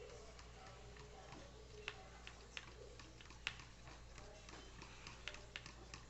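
Faint, irregular light clicks and taps, with faint voices in the background.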